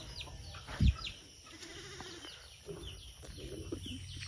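An animal bleating twice, with small birds chirping in short falling notes throughout. A dull thump about a second in is the loudest sound.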